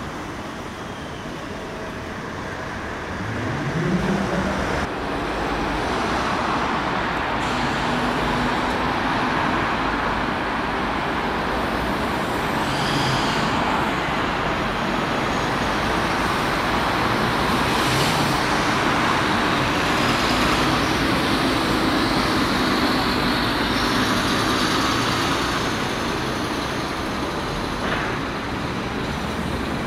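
Road traffic with buses and cars passing: a steady mix of engine and tyre noise, with one engine's pitch rising about three seconds in.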